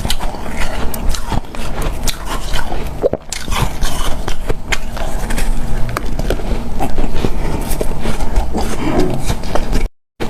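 Close-miked biting and chewing of hard, powdery refrozen freezer ice, a dense run of irregular crisp crunches. The sound cuts out completely for a moment near the end.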